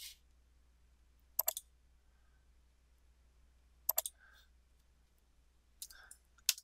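Computer mouse button clicks, sharp and short, in quick pairs and small groups every couple of seconds.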